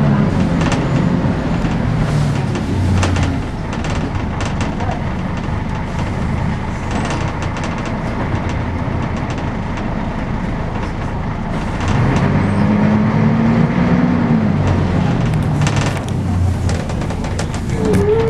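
Volvo B10BLE single-deck bus heard from inside the saloon while it is driving. The diesel engine's pitch falls away early on, rises again about twelve seconds in and then drops back, over steady road rumble and interior rattles.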